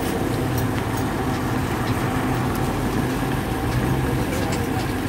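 Heavy flatbed tow truck's engine idling steadily, with a few faint ticks over it.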